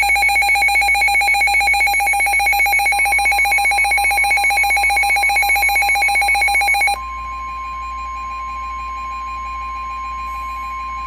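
Emergency Alert System attention tones for a severe thunderstorm warning: a loud, rapidly pulsing alert tone for about seven seconds, then a single steady tone of about 1 kHz, the weather-radio warning tone.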